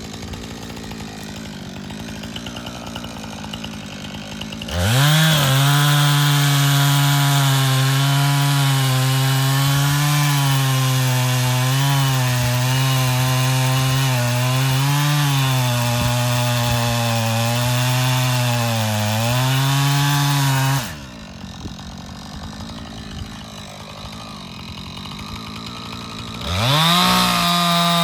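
Two-stroke chainsaw idling, then held at full throttle from about five seconds in, its pitch dipping and recovering as the chain cuts into the tree trunk under load. It falls back to idle around twenty-one seconds in and revs up again near the end.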